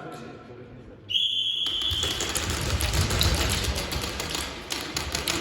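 Shot timer's start beep, one steady high tone about half a second long, about a second in. Rapid sharp clicks of an airsoft gun firing follow it and carry on with a low rumble of movement.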